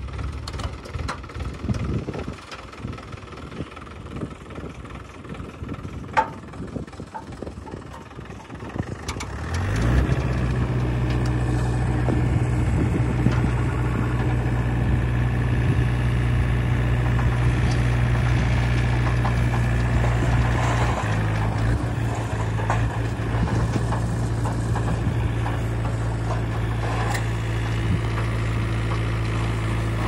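Mahindra 475 DI tractor's diesel engine running unevenly at low revs, with a single sharp knock about six seconds in. About ten seconds in it revs up and holds steady at high revs, driving the hydraulics that tip the loaded trolley.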